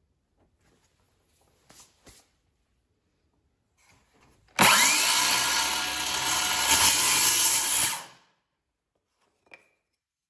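Porter-Cable 20V cordless circular saw starting up sharply about halfway in and crosscutting a small wooden piece for about three and a half seconds, then stopping. A few faint knocks before it and one small click after it.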